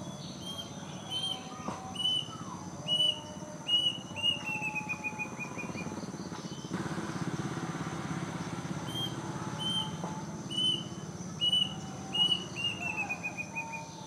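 Plaintive cuckoo (kedasih) singing its song twice. Each song is five or six clear, spaced whistled notes, then a quick run of notes falling in pitch.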